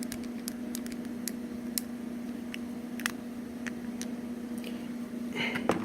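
Scattered small clicks and taps of a toy robot figure's parts being handled and moved, over a steady low electrical hum. A slightly louder rustle of handling comes near the end.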